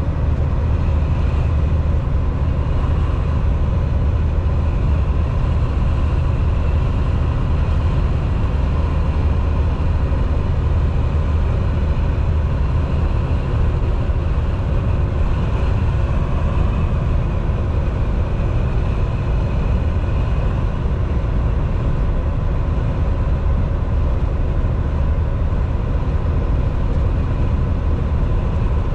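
Steady, even drone inside a Volvo semi-truck's cab while it cruises: the diesel engine's low hum mixed with road noise, unchanging throughout.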